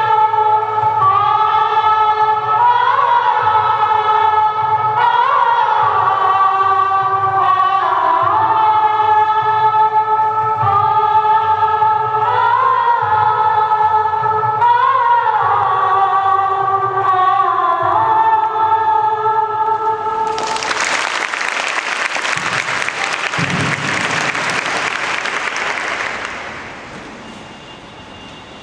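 Choir singing a song with a stepping bass line underneath, ending about twenty seconds in. Applause follows and fades out over the next few seconds.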